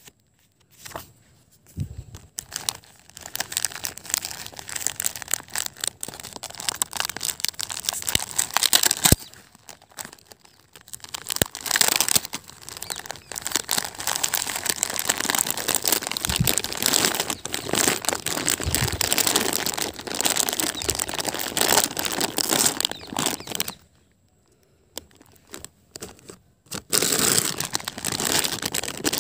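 Clear plastic bags crinkling and rustling as they are handled, in bouts with a couple of short pauses.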